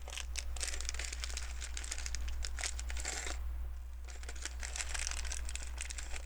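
Crinkling of a plastic LEGO parts bag with small clicks of pieces being picked through, in two stretches with a short pause a little after three seconds in.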